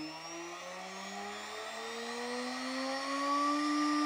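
1.5 kW Chinese CNC router spindle spinning up, running free: a whine that rises steadily in pitch and levels off about three and a half seconds in, near its set speed of about 16,000 rpm.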